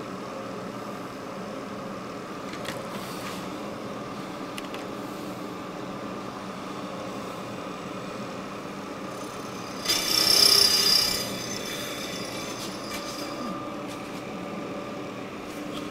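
Vertical milling machine running with an end mill in a cast aluminum motorcycle engine case: a steady motor and spindle whine, with a louder, high-pitched burst about ten seconds in that lasts about a second.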